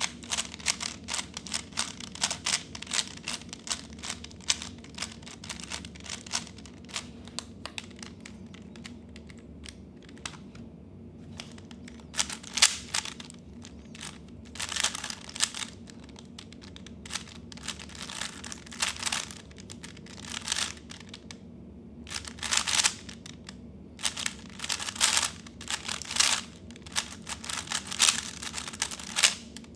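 A plastic 3x3 speedcube being turned fast by hand: rapid clicking and clattering of the layers, coming in quick flurries with a calmer stretch partway through, over a faint steady hum.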